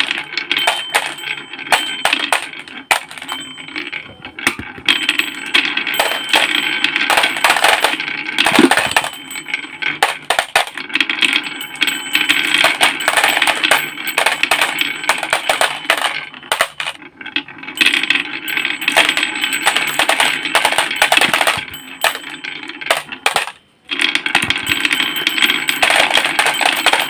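Plastic toy trucks and a toy excavator being handled and played with: a busy, continuous clatter of small clicks, clinks and rattles, broken by a brief gap near the end.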